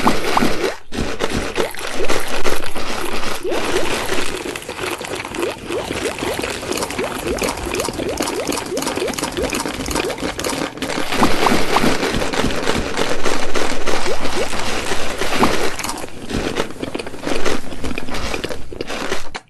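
Close-miked eating: dense wet chewing and crunching with many small crackles, louder around two seconds in and again in the middle.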